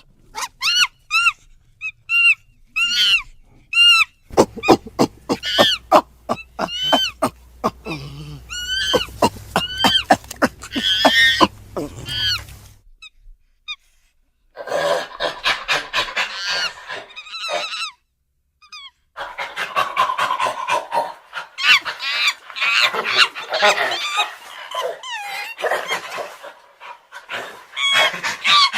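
Animated young gorilla character's vocal sound effects: a voice actor's ape-like calls. First comes a series of short calls that rise and fall in pitch, then a quicker string of calls over a low hum. After a brief pause come harsher, noisier cries and chatter.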